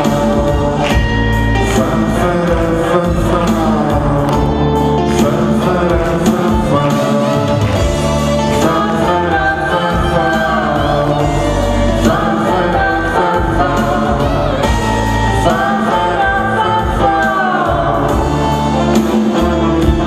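Male and female vocal duet singing a Russian pop song over instrumental accompaniment, with both voices together around the middle.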